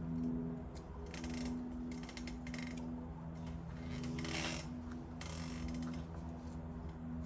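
Power drill motor running a left-hand cobalt drill bit into a broken bolt in an engine block, the trigger let off and squeezed again several times, with a short grinding burst about four seconds in.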